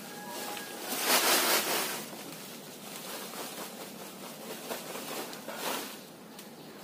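A woven plastic sack rustling as dry husk litter is shaken out of it onto a floor, with a louder pouring hiss about a second in and a shorter one near the end.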